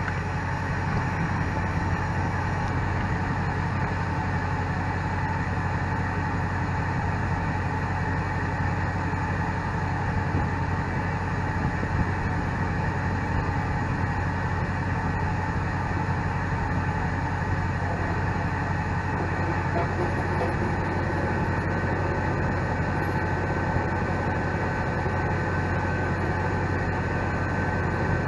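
An engine running steadily at an unchanging speed, without a break.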